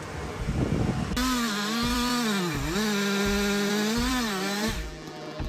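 Two-stroke chainsaw engine running at high revs, starting about a second in and stopping near the end, its pitch dipping briefly twice.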